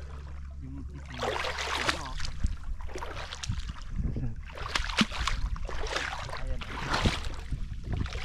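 Shallow seawater sloshing and splashing in irregular surges, about two a second, as someone wades through it. A low, steady rumble runs underneath.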